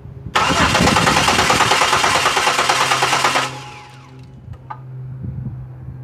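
2006 Buick Lucerne's 3.8 L V6 being cranked on the starter for about three seconds with a fast even pulsing, without catching, then cutting off abruptly. This is a crank, no-start: a faulty ignition control module gives no 12-volt reference to the crank sensor, so there is no spark.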